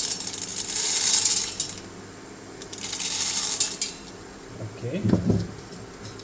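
Popcorn kernels poured into a hot, oiled stainless steel pot, rattling against the metal in two pours, the second shorter.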